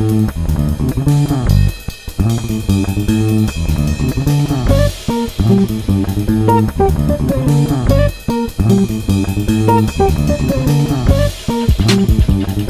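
Background music: bass and guitar playing a repeating riff, with light drums.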